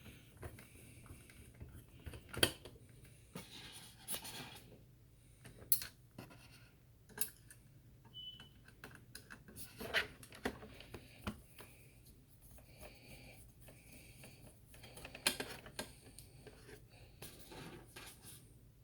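Scattered clicks, taps and scraping of small hardware being handled and fitted: screws and a metal mounting plate for an SSD going into a sampler's drive bay, over a faint steady low hum.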